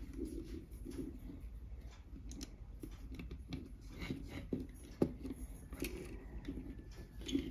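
Sluban plastic building bricks being handled and pressed together: scattered small clicks and soft rustling, with one sharper click about five seconds in.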